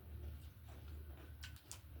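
Faint eating sounds: a few soft mouth and chewing clicks, the clearest about one and a half seconds in, over a low steady hum.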